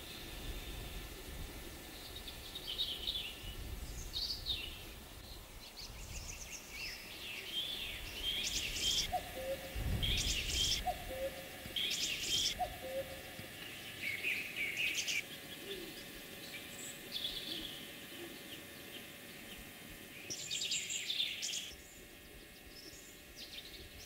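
Wild birds singing and calling, several different songs overlapping. A lower two-note call repeats three times near the middle.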